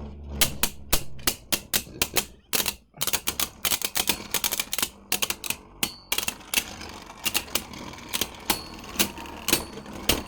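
Beyblade spinning tops clashing in a plastic stadium: rapid, irregular sharp clacks as the tops strike each other and the stadium walls, several a second.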